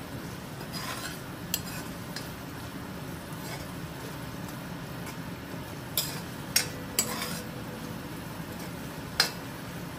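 A metal spoon stirring curry frying in a metal pot, with a steady low sizzle and several sharp clinks of the spoon against the pot, the loudest about six and a half and nine seconds in.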